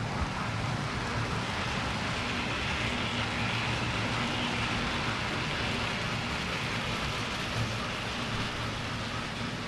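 Model railway freight train, a diesel locomotive hauling wagons, running along the track: a steady running noise of wheels on rails over a low motor hum, swelling in the middle as it passes closest.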